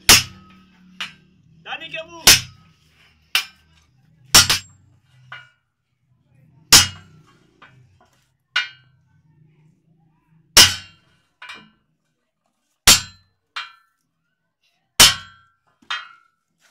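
Hammer blows on a strip of scrap steel held on an anvil, forging it into a dundun bell: sharp metallic clangs, each ringing briefly, a heavy blow about every two seconds with lighter strikes between.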